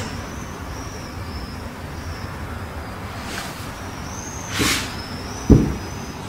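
A cat rolling about on a wooden cat-tree platform: a brief rustle a little past the middle, then a single dull thump against the wood about a second before the end, over a steady low rumble.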